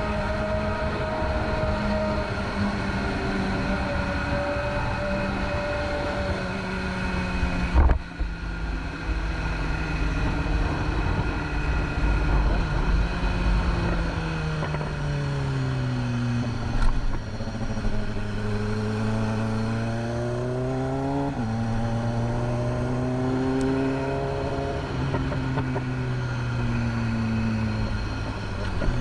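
BMW S1000RR inline-four engine running under way, its pitch sinking and climbing with the throttle. There is a sharp loud knock about a quarter of the way in. Near three-quarters through, the pitch drops suddenly, as at a gear change.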